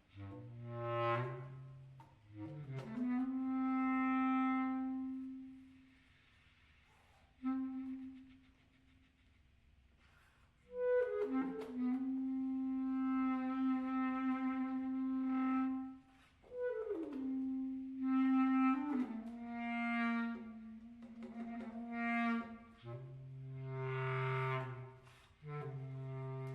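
Clarinet playing long held notes that swell up and die away, separated by pauses, in a contemporary concert piece. Low notes sound near the start and again near the end, with higher held notes in between.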